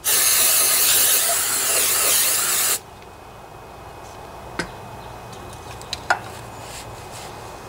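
Aerosol spray can hissing in a steady blast as cleaner is sprayed into an engine's open crankcase to flush out metal debris. It stops about three seconds in, and two light clicks follow.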